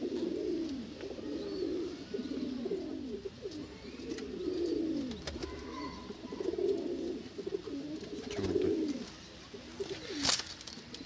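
Domestic pigeons cooing over and over in a loft, call after call with no break. A single sharp knock comes near the end.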